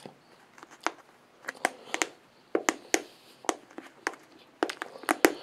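Takeout food packaging being handled: a run of irregular sharp crinkles and clicks, growing denser and louder toward the end.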